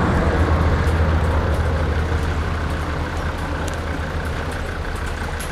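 A steady low rumble over the rush of fast-flowing river water, slowly easing.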